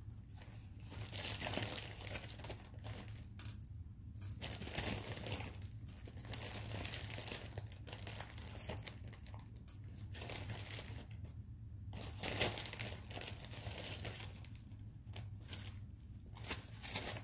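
Rummaging through a bag of tangled costume jewelry: irregular rustling and crinkling in bursts every second or two, over a low steady hum.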